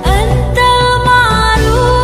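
A female voice singing a line of Arabic sholawat, with bending ornamented notes and a held note that steps down in pitch near the end, over steady instrumental accompaniment.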